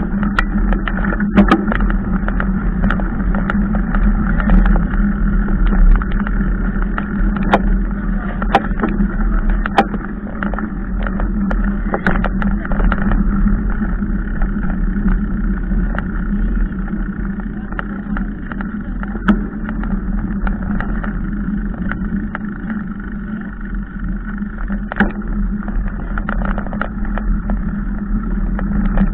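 Mountain bike rolling over a dirt and mud track: a steady rumble of tyres on the ground, with frequent sharp knocks and rattles as the bike jolts over bumps.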